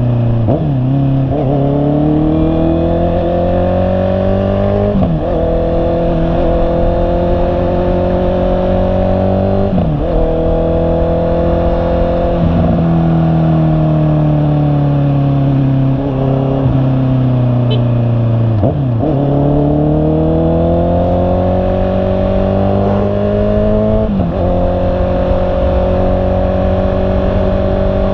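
Honda CB650R's inline-four engine riding through the gears: the pitch climbs and drops sharply at each gear change several times, and sinks steadily for a few seconds in the middle as the throttle eases off.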